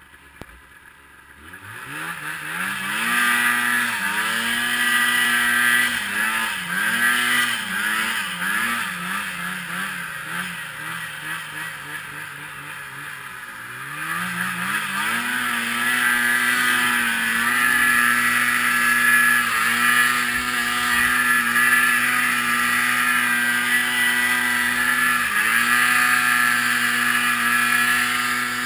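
Polaris IQ Shift 550 snowmobile's two-stroke engine coming up to speed about two seconds in, revving up and down several times, easing off, then revving hard about halfway and holding high with a couple of brief dips. A steady rushing hiss runs underneath.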